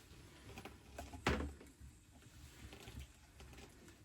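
Quiet handling of dismantled genset parts: faint clicks and rustles, with one sharp knock about a second in.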